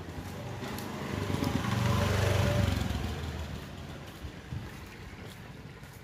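Small motor scooter's engine running as it rides past close by in a narrow alley, growing louder, passing about two seconds in, then fading away.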